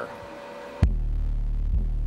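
Hifonics Brutus BRW12D4 12-inch subwoofer starting suddenly into loud, deep bass a little under a second in. It plays a steady, very low note with a soft pulse about once a second.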